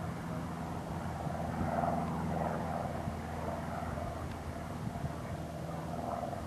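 Cessna 152's Lycoming O-235 four-cylinder engine and propeller droning steadily as the plane flies by, heard from the ground at a distance; the drone swells a little about two seconds in.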